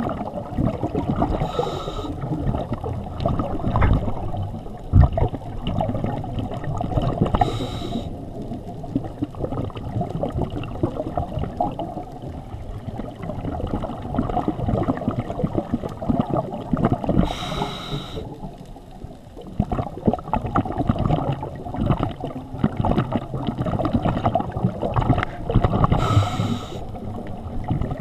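Scuba regulator breathing heard underwater through a camera housing: a constant muffled gurgling rumble of bubbles and water, broken four times, several seconds apart, by a short hiss of an inhalation through the regulator.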